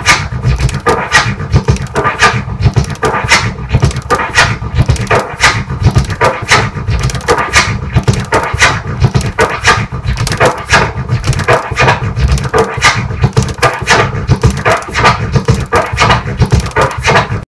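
Turntable scratching of a kick-and-snare drum sample, cut with the mixer crossfader into a fast, rhythmic run of short strokes. The pattern is the three-click orbit on the forward push and the three-tear pause on the pull back, which makes drum-like kick and snare hits.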